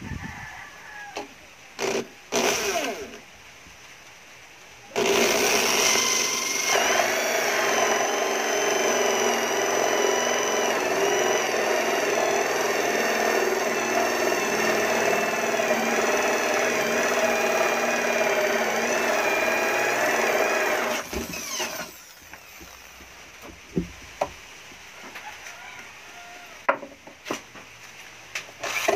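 Electric drill with a hole saw cutting a round hole through the side of a wooden speaker cabinet. A couple of short spurts come first, then about sixteen seconds of steady running with a whining motor tone as the saw cuts through, stopping abruptly. A few small knocks and clicks follow.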